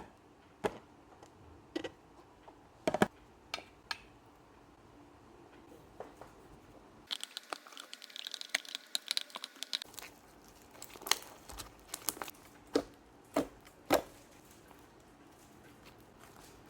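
Slime mixed with clay and water beads being handled and squeezed, giving scattered sharp clicks and snaps, with a denser run of crackling from about seven to ten seconds in.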